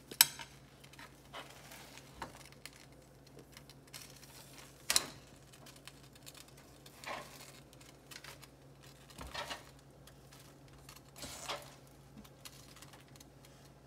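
A few sharp knocks and taps at a nonstick frying pan as sliced lemongrass is added. The loudest comes just after the start and another about five seconds in, with fainter taps later, over a faint steady hum.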